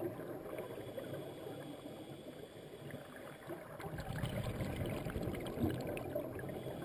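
Muffled underwater noise picked up through a dive camera's waterproof housing, swelling about four seconds in, with scattered faint clicks.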